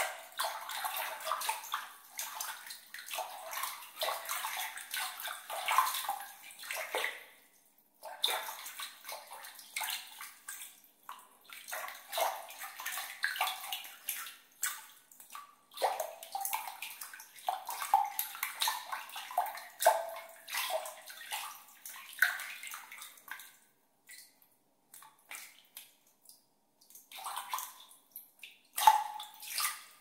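Water being played with by hand, splashing and gurgling in irregular bursts. There are brief pauses, and one sharper splash comes near the end.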